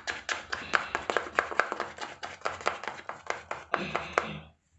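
A spoon beating thick malai batter in a small plastic cup: fast, regular clicks of the spoon against the cup, about seven a second, stopping shortly before the end.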